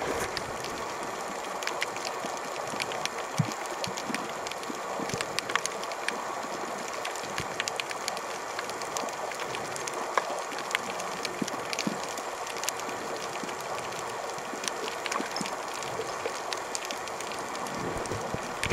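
Underwater ambience picked up by a camera in its housing: a steady hiss with many scattered sharp crackling clicks.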